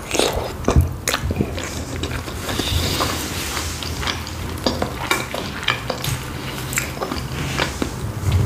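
Close-miked chewing of a khinkali dumpling in cream sauce: continuous crackly mouth sounds with many small clicks.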